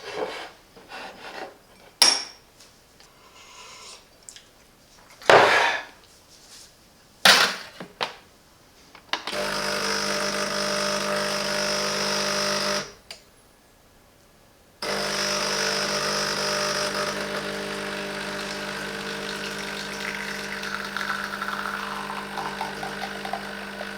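A few sharp clinks and knocks, then from about nine seconds in the steady hum of an espresso machine's pump running, cutting out for about two seconds and starting again.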